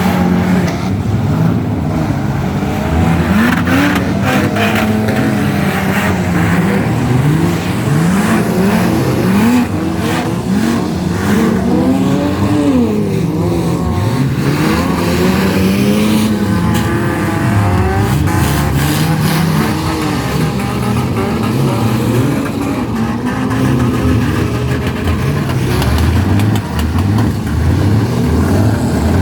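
Several demolition derby car engines revving hard, their pitches rising and falling against one another, with sharp knocks scattered throughout.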